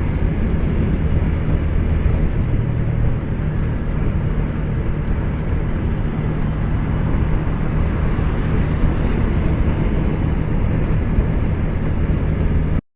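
Motorcycle ridden at highway speed: a steady engine drone under wind rushing over the microphone. It cuts off abruptly just before the end.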